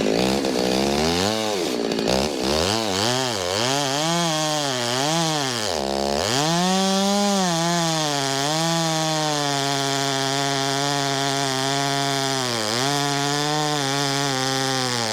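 Stihl MS 390 two-stroke chainsaw revving up and down several times in quick succession, then held at high revs with a slight waver, as when cutting into a log, with one brief dip in speed about two-thirds of the way through.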